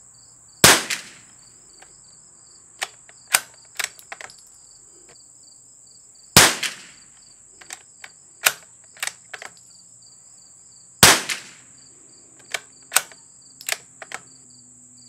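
Three shots from a CZ bolt-action .22 LR rifle, about five seconds apart, with lighter metallic clicks of the bolt being worked between them. A steady high insect buzz with regular pulsing chirps runs underneath.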